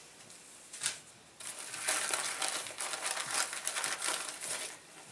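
Clear plastic bag full of food packets crinkling as it is handled and pressed down, with a single light knock about a second in and then about three seconds of continuous crackling rustle.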